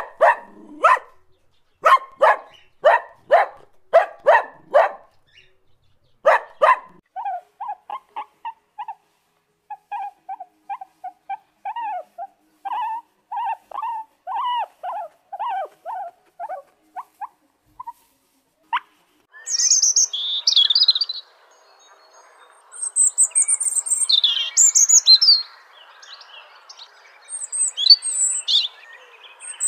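A puppy barking in a quick series of short, sharp yips, then a rat giving many short, high squeaks, a few a second, for about ten seconds. From about twenty seconds in, birds chirp high and fast over a faint hiss.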